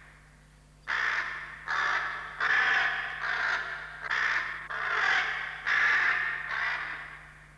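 A flock of crows cawing: short, harsh calls follow one another closely from about a second in and die away near the end.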